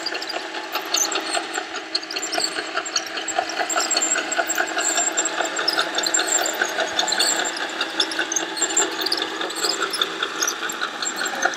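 Radio-controlled Liebherr 634 track loader model driving: a steady whine from its drive motors and gearboxes, with its tracks ticking and clattering over concrete.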